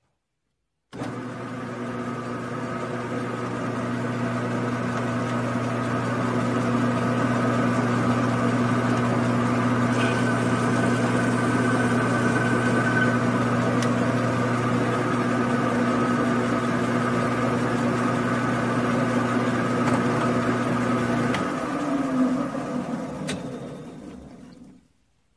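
Metal lathe running: a steady motor and spindle hum with several fixed tones starts about a second in, while a drill in the tailstock bores a small brass part. About 21 seconds in the lowest hum drops away and the spindle winds down, stopping near the end.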